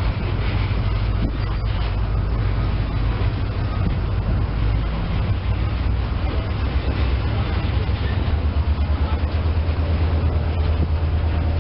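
Freight train of boxcars rolling slowly past, shoved by an SD40-2 diesel locomotive. A steady low diesel rumble runs under the roll of the cars, with occasional sharp clanks, and the rumble takes on a quick throbbing pulse near the end.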